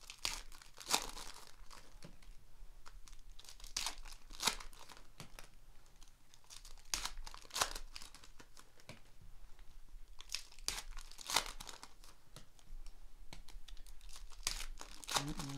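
Foil trading-card pack wrappers being torn open and crinkled in the hands: a run of sharp crackles and rips, with several louder tears a few seconds apart.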